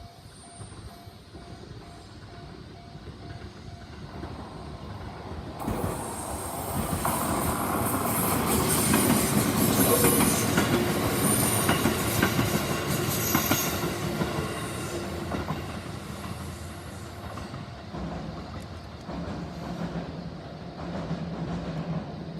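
JR 373 series three-car electric limited express train passing over a level crossing. Its wheels clatter over the rail joints: the sound starts suddenly about five seconds in, is loudest around the middle, then fades. Before the train arrives, the crossing's warning bell is ringing in a steady repeating pattern.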